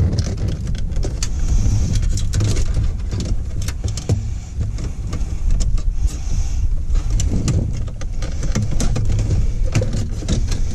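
Handling noise from working on a car radio and its wiring plugs: a run of scattered clicks and rattles over a steady low rumble, with brief rustling about two seconds in and again near the middle.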